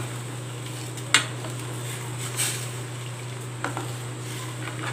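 Steel ladle stirring jaggery syrup in a stainless steel pan, scraping round and knocking against the pan four times, about a second and a quarter apart. A steady low hum and a faint hiss sit underneath.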